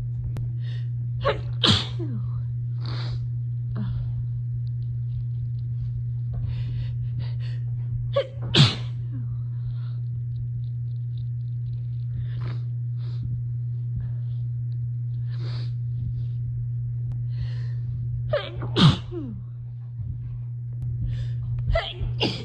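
A woman sneezing several times from dust irritation, with short breaths between the sneezes. A steady low hum runs underneath throughout.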